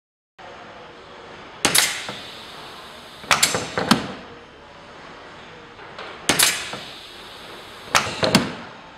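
A pneumatic test rig's arm repeatedly slamming and working the lid of a plastic waste bin, in a steady cycle: a sharp clack, then a quick rattle of two or three knocks, twice over, against a low steady hiss.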